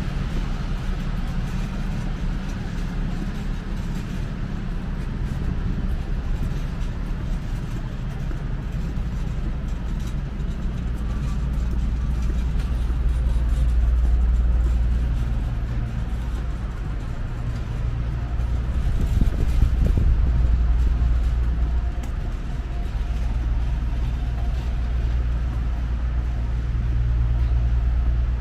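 City street traffic: a steady low rumble of motor vehicles, swelling three times as vehicles go by.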